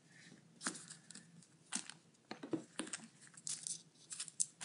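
Faint, scattered crinkles and rustles as fingers squeeze and roll a mini panda bun squishy, a soft foam toy, against the printed surface beneath it.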